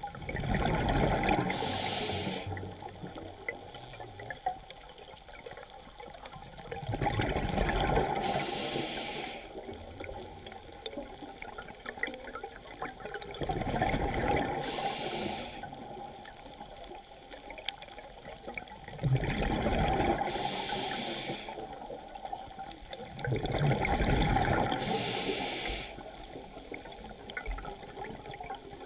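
A scuba diver breathing through a regulator underwater: five breaths, about one every five to six seconds, each a rush of air and gurgling exhaled bubbles, with quiet between.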